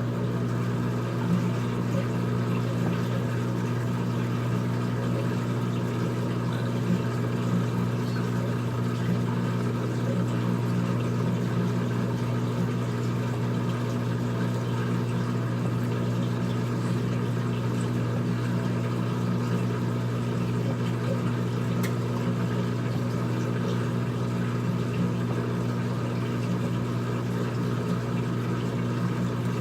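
Old-style front-loading washing machine running near the end of its cycle: a steady, unchanging motor hum with a few low tones and a light wash of noise above.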